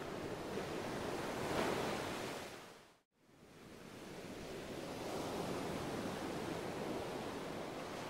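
Steady rushing hiss that swells slightly, drops out to silence about three seconds in, then fades back up and runs on evenly.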